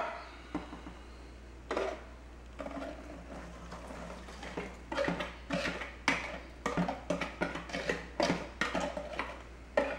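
Seasoned crackers rattling and clattering in a container as they are tumbled to coat them in spices: a few light knocks at first, then about halfway through repeated shakes, roughly two a second.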